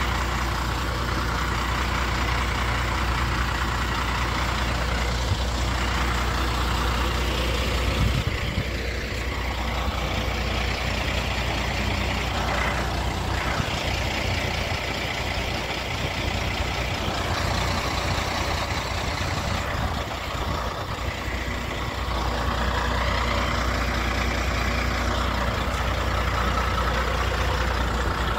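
Heavy trucks driving past on a road, engine and tyre noise swelling and fading over a steady low rumble, with a jolt about eight seconds in.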